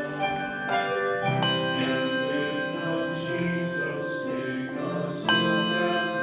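Handbell choir ringing a piece: several bells struck together, their tones ringing on and overlapping, with a loud chord struck about five seconds in.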